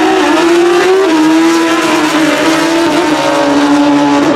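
Two Real Street drag-racing sport bikes under full throttle, running away down the drag strip, the engine note dropping at gear changes about one second in and again about three seconds in.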